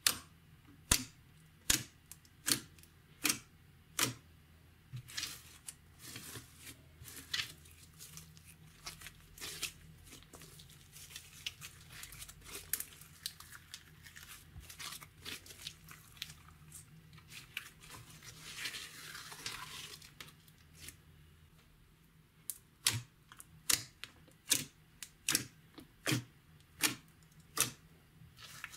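Slime being pressed and worked by hand, giving sharp air-bubble pops about one every three quarters of a second at the start and near the end, with denser, softer crackling in between.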